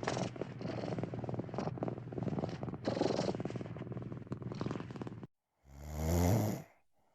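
Domestic cat purring, a dense, evenly pulsing rumble that stops about five seconds in. After a brief pause comes a short, louder animal call that falls steeply in pitch.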